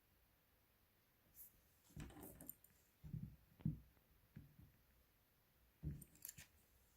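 Near silence broken by a few faint, short knocks and clicks of handling, in a cluster about two to four seconds in and again near the end.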